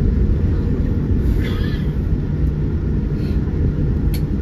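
Boeing 787-9 on its landing rollout, heard inside the cabin: a steady, heavy low rumble from the wheels on the runway and the airframe decelerating with the spoilers deployed. A brief click comes near the end.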